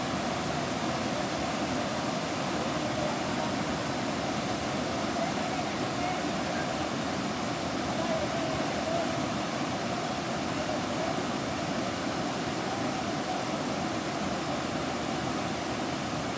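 Steady rushing of a swollen, flooded river after heavy monsoon rains.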